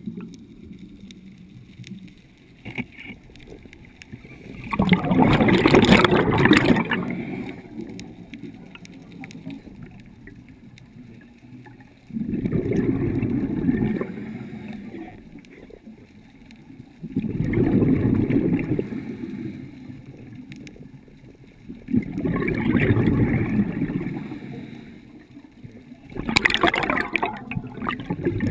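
Scuba diver's exhaled bubbles rushing from the regulator past the underwater microphone: five bursts of gurgling about every five seconds, each lasting about two seconds, with a quieter low rumble between breaths.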